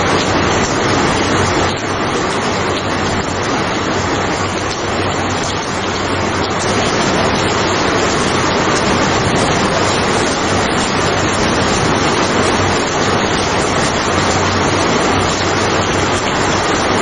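Steady rain falling, an even, dense hiss that holds without a break.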